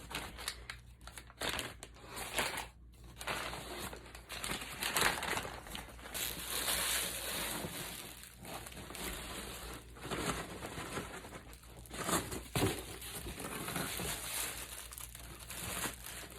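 Packaging crinkling and rustling as hands dig through a shipping box and pull the contents out, with irregular sharp crackles throughout.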